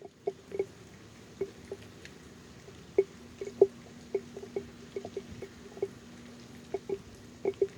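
Raindrops landing on a phone, heard as irregular single taps, a few a second, each a short low pitched tap.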